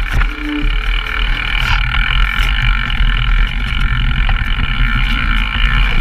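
Mountain bike descending a downhill trail, heard through the two helmet or bike cameras' microphones. Wind buffets the mics in a steady rumble, over continuous tyre and drivetrain noise, with scattered sharp clicks and knocks from the bike rattling over rough ground.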